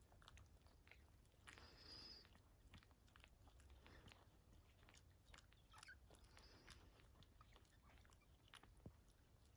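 Faint, irregular wet clicks and smacks of newborn puppies suckling at their mother's teats.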